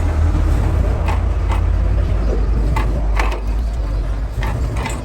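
A vehicle engine running with a steady low rumble, with a number of short, sharp knocks and clicks scattered over it.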